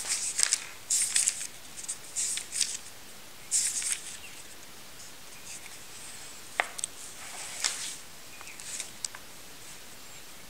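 Paper rustling in short bursts with a few sharp clicks: pages of a book being turned and handled.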